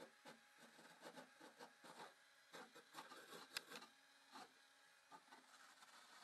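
Cordless drill with a wire wheel whirring faintly in short bursts, the wheel scratching and clicking against the rusty bottom of a car's rear sill as it strips rust.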